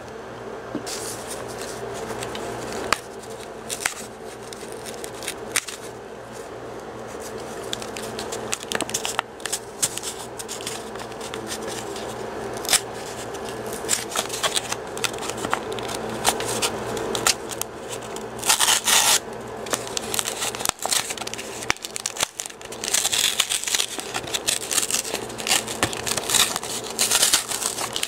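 Pokémon trading-card booster pack wrapping handled close to the microphone: plastic and foil crinkling and tearing, with scattered clicks and scrapes. There is a louder burst of crinkling about two-thirds of the way through and a long run of it near the end.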